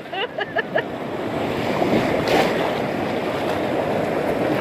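White water rushing around an inflatable kayak in a river rapid, with water washing over the bow and a splash about two seconds in. A person gives short vocal cries in the first second.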